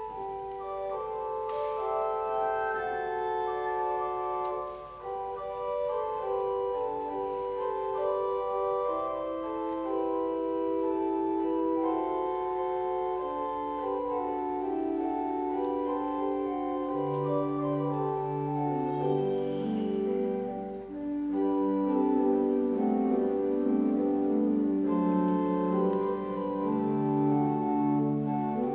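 Church organ playing slow, held chords, with low bass notes joining about halfway through.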